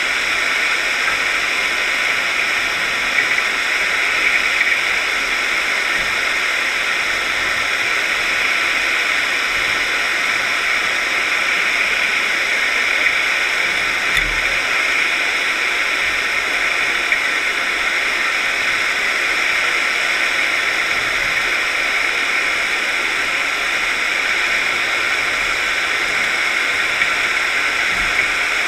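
Steady, even hiss heard through a GoPro's waterproof housing while it is towed underwater on a scallop dredge across the seabed, with a few faint knocks and one low thump midway.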